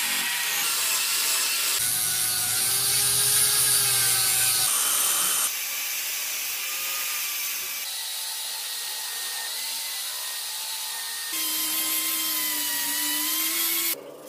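Power tools grinding and sanding steel: a motor whine over a steady high grinding hiss, its pitch wavering with the load. The sound jumps abruptly several times between tools (a rotary tool's grinding stone, then a belt sander) and cuts off suddenly near the end.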